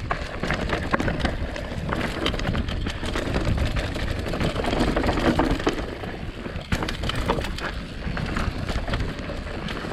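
Mountain bike riding down a rough dirt trail: a continuous crunch of tyres on dirt and rock, with frequent clattering knocks as the bike goes over bumps, over a steady low rumble.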